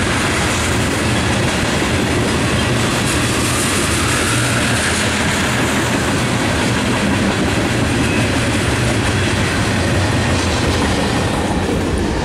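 Freight train of tank cars rolling past, a steady loud rumble and rattle of steel wheels on the rails. Near the end it turns duller, heard from inside a car.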